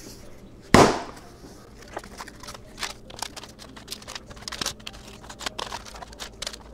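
Pillsbury crescent roll can bursting open with one sharp pop about a second in. Then soft crinkling and light clicks as the raw dough sheet is unrolled and pulled apart on parchment paper.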